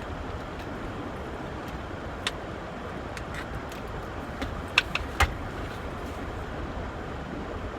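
Steady low rumble and hiss of a vehicle, with a few short sharp clicks about two seconds and five seconds in.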